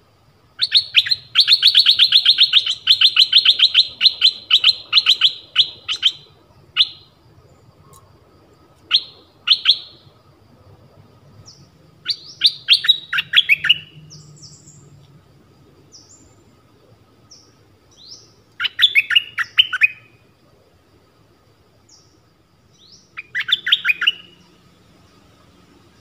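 Nok dok taeng songbird calling from its cage: a long, fast chattering run of notes for about five seconds, then shorter bursts of rapid notes, several falling in pitch, with pauses of a few seconds between them.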